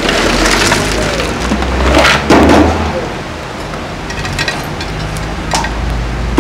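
Pumice stones poured from a bucket into a stove body and then spread by hand, a gravelly rattle and crunch of loose stone with scattered sharp clicks, loudest about two seconds in.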